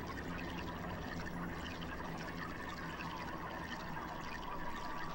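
Steady murmur of a large stadium crowd waiting, with no music playing.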